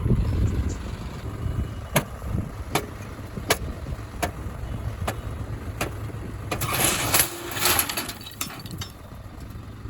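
Heavy diesel earth-moving machinery running at a mud-loading site. The engine rumble is strongest at the start. Sharp metallic clicks follow at regular intervals, and about seven seconds in comes a loud rattling rush lasting over a second.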